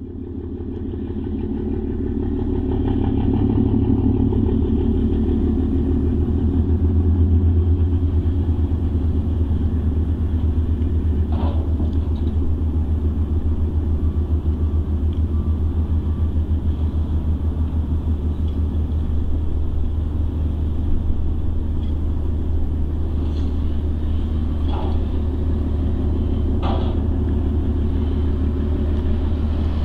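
Cargo ship's engine giving a steady, deep throbbing rumble as it approaches across the water. A few brief faint clicks come about a third of the way in and twice near the end.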